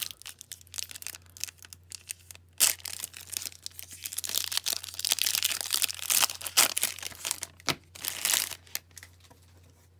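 A foil-lined hockey card pack wrapper (2009-10 Upper Deck Victory) being torn open and crinkled by hand. It makes an irregular run of rustling and crinkling with a few sharper tears, dying away about nine seconds in.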